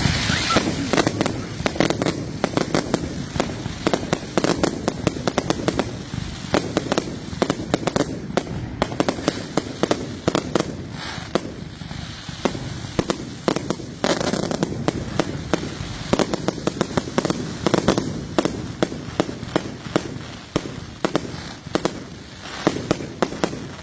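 Firework batteries firing: a dense, rapid string of sharp reports and crackles, with heavier booming bursts every few seconds.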